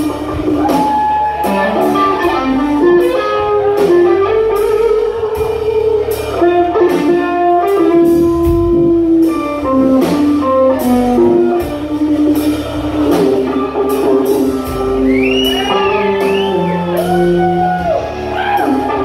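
Live blues-rock band: a Stratocaster electric guitar plays a lead line over bass guitar and drum kit. Several bent notes come near the end.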